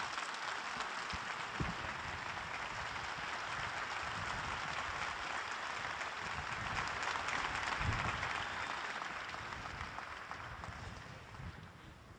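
Large crowd applauding steadily, dying away over the last couple of seconds.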